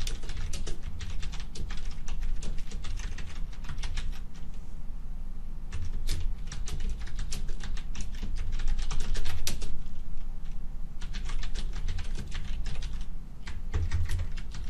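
Typing on a computer keyboard: quick runs of keystrokes broken by short pauses, over a low steady hum.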